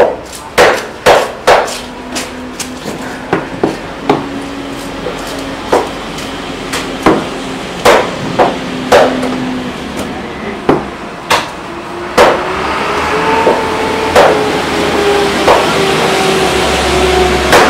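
Heavy cleaver chopping through a tuna and striking a wooden cutting block, with sharp, irregular knocks about one or two a second. From about twelve seconds in, an engine hums in the background.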